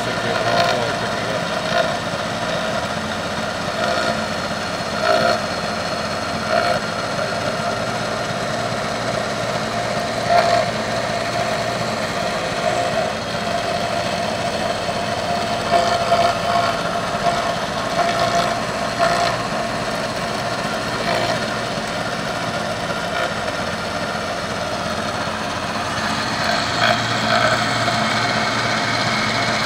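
CNC milling machine's end mill cutting a pocket into a metal plate: a steady cutting whine with brief louder surges every few seconds.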